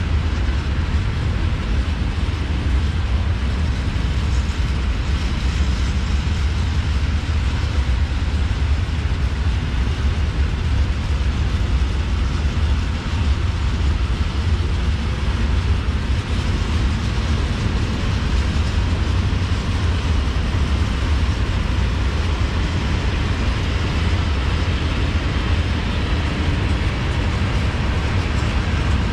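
Long freight train of open wagons rolling past steadily, a continuous rumble of wagon wheels on the rails.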